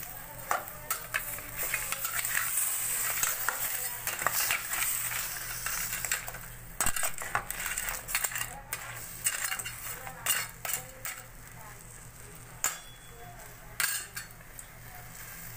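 Metal ladle clinking and scraping against a stainless steel pot and the crab shells as the crabs are stirred, in sharp irregular knocks. Sizzling from the pot runs underneath, strongest in the first few seconds.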